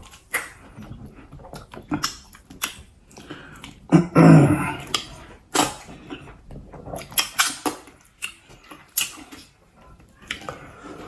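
Close-miked eating sounds: wet chewing, lip smacks and slurps of pounded yam and pepper soup, coming as a string of short clicks. A louder throaty vocal sound comes about four seconds in.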